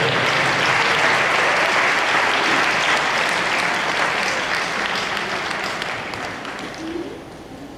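Audience clapping, a dense patter that fades away over the last couple of seconds.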